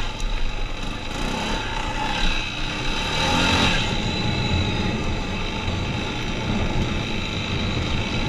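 Four-wheeler (ATV) engine running steadily as the machine rides along a dirt trail, with a rushing noise that swells briefly about three seconds in.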